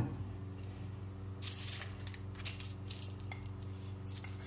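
Kitchen sounds at a stainless-steel pot of oil heating on the stove: a steady low hum, with a few brief clinks and rustles of utensils about one and a half, two and a half and three and a half seconds in.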